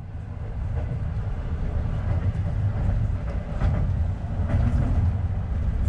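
Passenger train running along the track, heard from inside a sleeper carriage: a steady low rumble from the wheels and running gear that grows louder over the first couple of seconds, with a few faint clicks and rattles.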